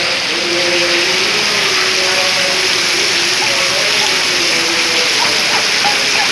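Heavy rain pouring down in a steady, loud hiss, with faint voices wavering in the background.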